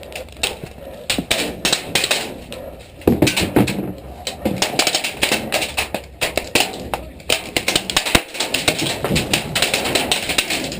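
Airsoft guns firing, an irregular run of sharp clicking shots that grows busier and louder about three seconds in.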